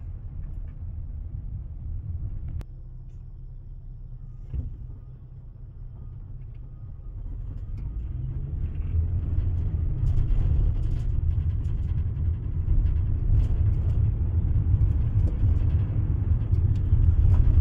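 Low rumble of a car's engine and tyres heard from inside the cabin as it drives slowly; a single sharp click a few seconds in, and the rumble grows louder about halfway through.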